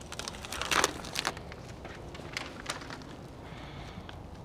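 Flashing tape being peeled and handled: short bursts of crinkling and rustling, loudest just under a second in, then a few faint crackles.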